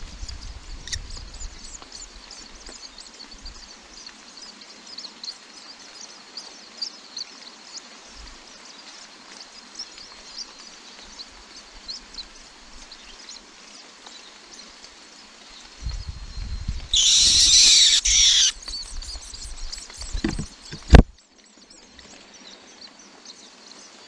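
Steady rain hiss with faint, rapid high chirps or ticks throughout. About two-thirds of the way through, a loud rushing noise lasts about a second and a half, and a single sharp knock follows a few seconds later.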